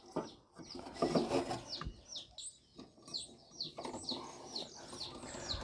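A small bird chirping over and over in short, high, falling notes, about three a second. There are a few soft knocks and rustles in the first second or so, from the belt and pulley being handled.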